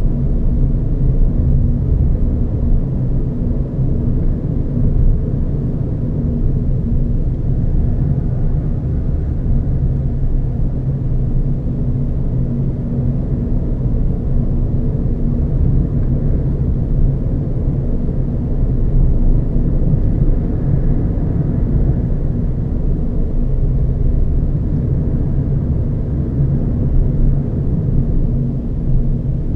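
Renault Zoe electric car driving along a road: a steady low rumble of tyre and wind noise that holds level throughout.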